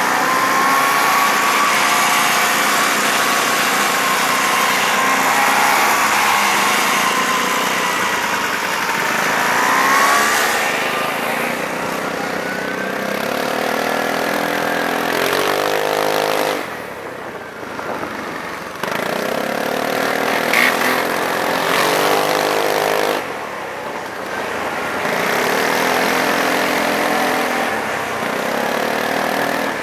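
Motorcycle engines running throughout, with several machines accelerating away one after another, each engine's pitch rising as it pulls off.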